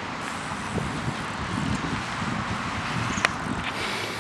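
Steady rush of wind over the microphone of a camera carried on a moving BMX bike, with a single sharp click about three seconds in.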